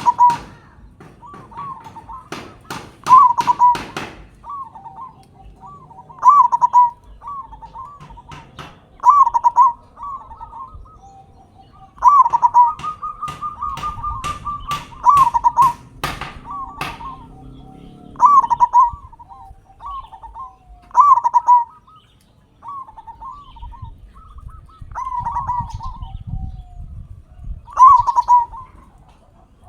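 Zebra dove (perkutut) cooing: a local bird singing its rolling coo phrases over and over, with a loud phrase about every three seconds. Sharp clicks come in among the phrases at times.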